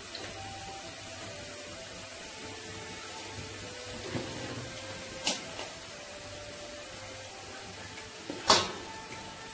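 Steady hum of a commercial wok stove running, with a thin high whine over it. A sharp metal clink about five seconds in, and a louder one near the end as a steel ladle strikes the wok.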